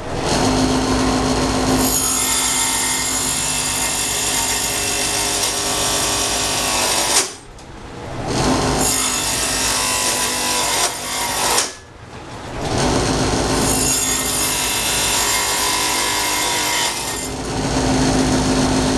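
Electric power tool cutting into wood, its motor running with a steady hum. It stops twice, for about a second each time, and starts up again.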